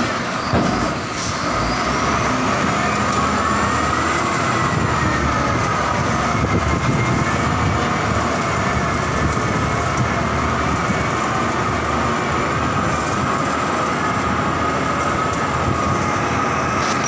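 Heavy construction machinery running steadily inside a tunnel, a dense mechanical noise with a held whine and a higher tone that slowly rises and falls over it.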